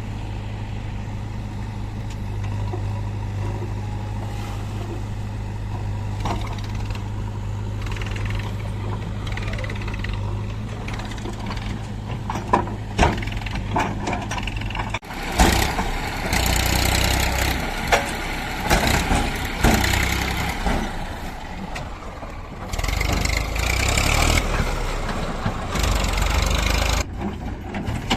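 Diesel engine of a backhoe loader running steadily. About halfway through, the sound shifts abruptly to louder, rougher machinery noise with hiss and scattered clanks and knocks, the kind made by a loader working.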